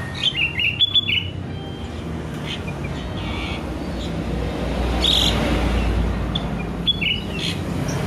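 Sooty-headed bulbul (kutilang) singing short whistled phrases: a quick run of notes in the first second, one note about five seconds in and another run about seven seconds in. A low rumble of background noise swells midway.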